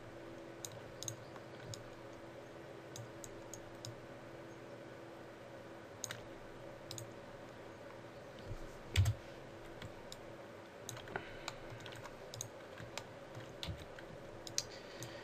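Scattered clicks of a computer mouse and keyboard being worked at a desk, over a faint steady hum, with one low thump about nine seconds in.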